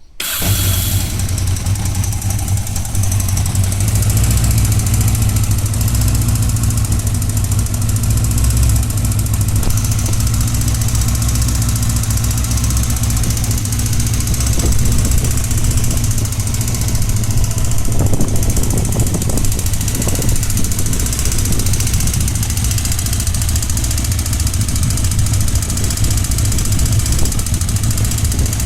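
Honda CBX 550 F motorcycle's inline-four engine idling steadily, carrying a problem noise that the owner locates mainly on the right side of the engine. A few sharper knocks stand out about two-thirds of the way in.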